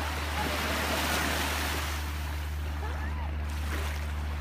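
Shallow sea water lapping and splashing around a swimming dog, over a steady low rumble, with faint distant voices.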